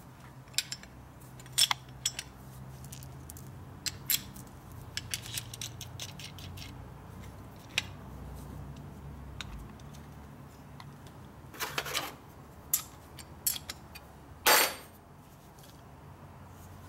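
Harley Panhead rocker arms and rocker-arm support clicking and clinking together as they are handled and fitted, metal on metal. There are many short sharp clicks, with a louder clatter near 12 s and again about two and a half seconds later, over a faint steady low hum.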